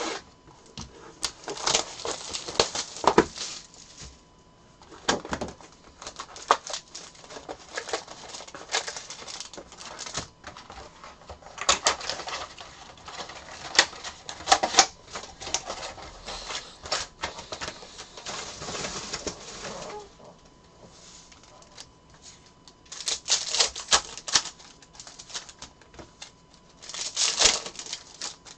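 Foil wrappers of 2022 Panini Limited football trading-card packs crinkling and rustling as the box is opened, the packs are handled and one is torn open. The sound comes in several bursts of a few seconds each, with short quiet gaps between them.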